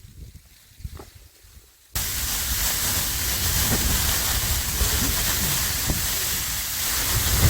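Wind-driven heavy snow pelting tent fabric in a gale: a steady, loud hiss with a low, gusty rumble beneath, starting abruptly about two seconds in after a quieter stretch.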